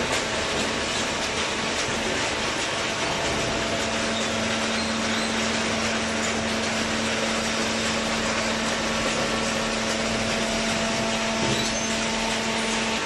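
Automatic hydraulic waste paper baler running: steady mechanical noise with a low hum that comes in a couple of seconds in and stops just before the end.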